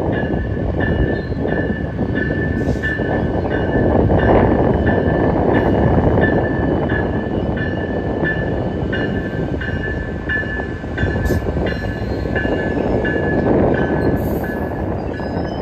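Amtrak passenger train, led by a Siemens SC-44 Charger diesel locomotive and followed by bilevel coaches, crossing a steel railway bridge. The wheels give a steady rumble with regular clacks, about two or three a second, under a steady high-pitched whine.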